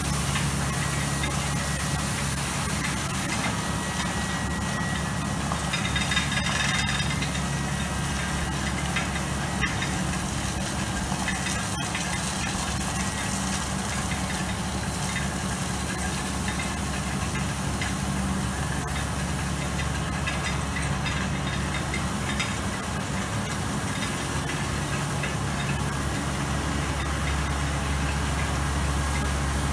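Vervaet self-propelled slurry tanker's diesel engine running steadily while its pump throws a jet of water, a constant low engine hum under the steady hiss of the spray.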